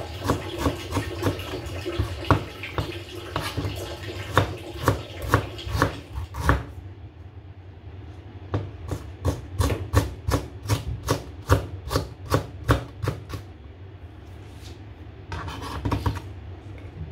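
Chef's knife slicing ginger on a plastic cutting board: a steady run of sharp taps, about three a second, as the blade meets the board. A steady hiss runs under the first six seconds or so, stops suddenly, and returns briefly near the end.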